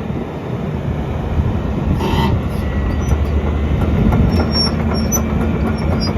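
XCMG XE210CU excavator's Cummins diesel running under hydraulic working load, getting gradually louder, with scattered clicks and knocks from the machine.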